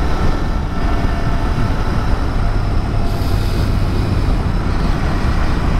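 Royal Enfield Continental GT 650's parallel-twin engine running steadily at cruising speed, under wind and road noise.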